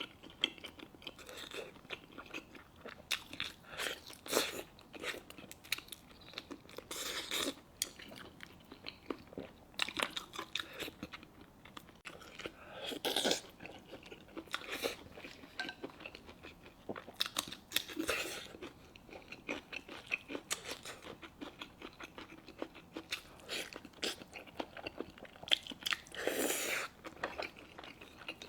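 A person chewing and smacking on mouthfuls of braised pork knuckle and rice close to the microphone, with irregular wet clicks and soft crunches.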